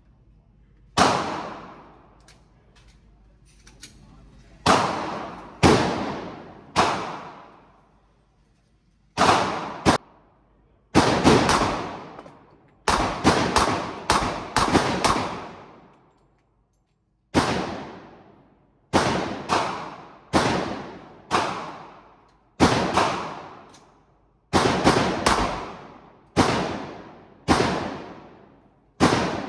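Gunshots at a shooting range: about two dozen single shots fired one after another at uneven spacing, sometimes several in quick succession, each sharp crack dying away in a long echo.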